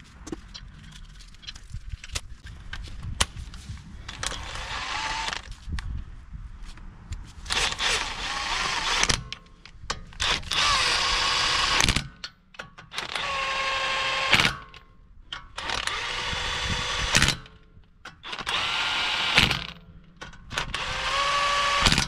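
Cordless impact wrench spinning the wheel spacer's nuts down onto the truck's hub studs, only snugging them. It runs in about six short bursts in the second half, each starting with a rising motor whine that then holds steady, with faint clicks before them.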